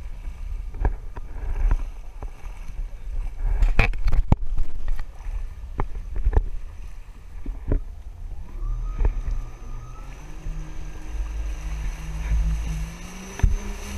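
Jet ski riding over water: a heavy low rumble broken by sharp knocks and slaps. About two-thirds of the way in, an engine note rises in pitch as the jet ski speeds up.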